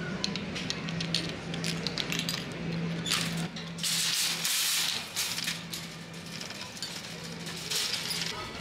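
Metal wire shopping cart being freed from its coin lock: metallic clicks and rattles as the coin goes into the lock and the chain key releases, with a louder stretch of rattling around four seconds in as the cart is pulled loose from the row. A steady low hum runs underneath.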